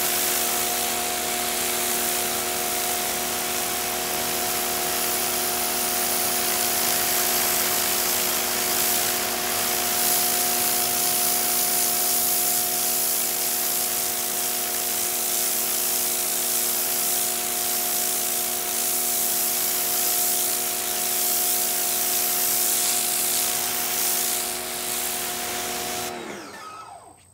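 Sun Joe SPX2688-MAX electric pressure washer running, its motor and pump humming steadily under the hiss of the water jet. About 26 s in the spray stops and the hum drops in pitch as the motor winds down.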